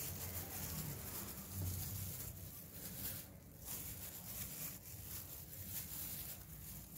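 Faint room noise: a steady low hiss with a low hum underneath, and no distinct sounds.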